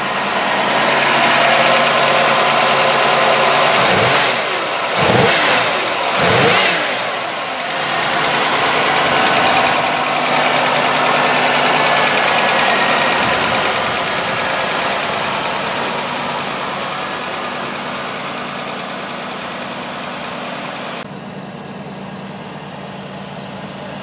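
1986 Oldsmobile 98's engine idling, revved up and let fall back three times in quick succession about four to seven seconds in, then idling steadily and growing gradually fainter.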